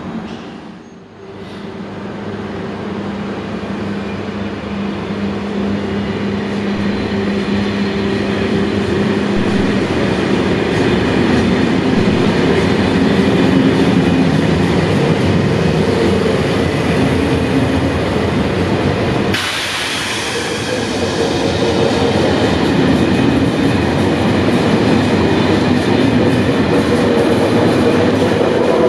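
CFL Serie 2000 electric multiple unit running on the rails: a continuous rumble of wheels and running gear with a steady hum of a few held tones, growing louder over the first few seconds. The sound changes abruptly about two-thirds of the way through, then carries on as before.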